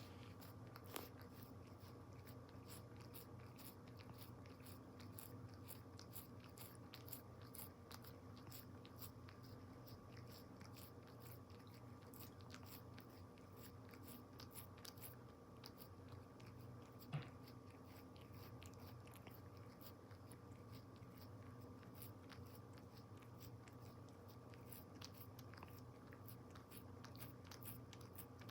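Siamese cat biting and chewing a catnip ball: faint, rapid crunching clicks that go on throughout, one sharper click about 17 seconds in, over a low steady hum.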